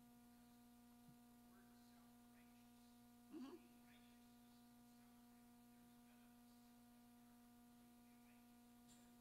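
Near silence: a steady electrical mains hum from the sound system, with a faint voice speaking off-microphone and one short, slightly louder sound about three and a half seconds in.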